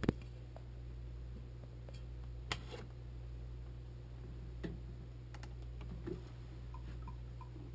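Idle electric guitar rig humming steadily and low, with a sharp knock at the start and a few small clicks and knocks as the camera and guitar are handled. Near the end come four faint, even metronome ticks, about three a second: the click track's count-in.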